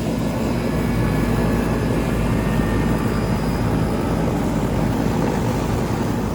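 Outdoor central air conditioner condenser unit running steadily, its fan and compressor making a continuous loud hum and rush.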